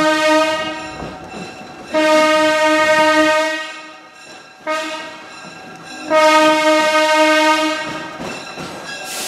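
Locomotive sounding the grade-crossing signal as the train nears a crossing: two long blasts, a short one, then a long one, each a single steady pitched tone.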